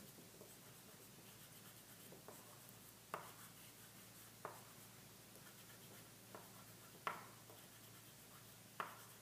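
Faint scratching of white chalk drawn across black paper, with about five short, sharp ticks as the chalk strikes the paper.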